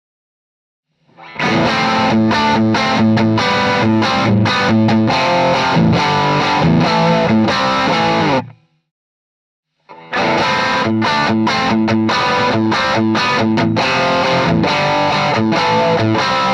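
Electric guitar played through a BSM Studio 75 treble booster, which emulates an AIWA tape-preamp sound: two rock phrases of picked notes with a lightly overdriven, crisp edge, each starting and stopping cleanly, with a short silence between them.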